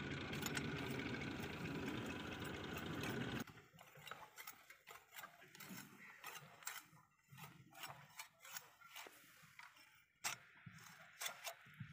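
Small hand-cranked chaff cutter being turned. A dense, steady whirring clatter for the first few seconds cuts off suddenly, then come slower, irregular clicks and knocks from its gears and blade.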